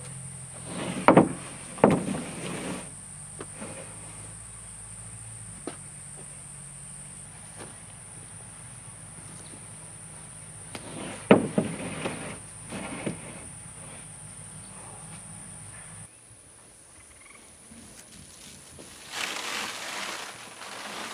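Sheets of OSB plywood knocked against wooden roof framing while being handled: a few sharp thumps about a second in and again about eleven seconds in, over a steady high insect buzz. Near the end a scraping noise as rolled roofing is unrolled across the roof.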